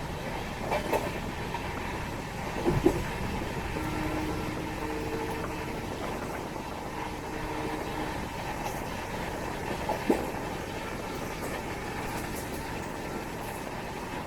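Express passenger train running at speed: a steady rumble of wheels on rail, with sharp knocks about a second in, near three seconds and near ten seconds as the wheels cross rail joints or points. A steady two-note tone sounds for about four seconds in the middle.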